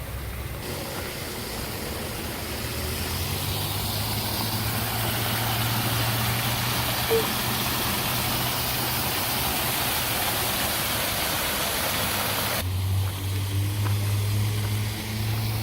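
Steady rush of water from a garden waterfall or stream, over a low steady hum; the rush of water cuts off suddenly near the end, leaving the hum.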